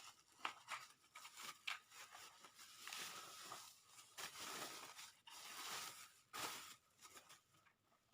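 Plastic bubble wrap being pulled and unwrapped from a keyboard, faint crinkling and tearing rustles in irregular bursts that stop shortly before the end.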